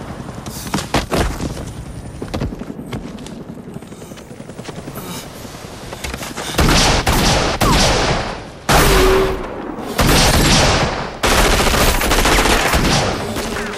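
Automatic gunfire in an action-film soundtrack. Scattered sharp cracks come in the first half, then long, loud bursts of rapid fire start about six and a half seconds in, broken by a few short gaps.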